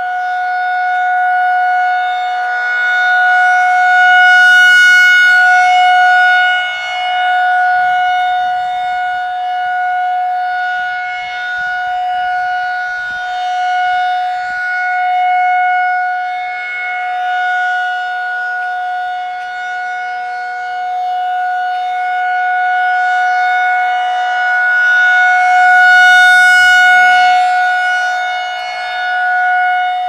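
Federal Signal 2001-SRN electronic siren sounding a steady alert tone from its rotating horn speaker. The tone swells and fades as the horn sweeps around, loudest about five seconds in and again some twenty seconds later.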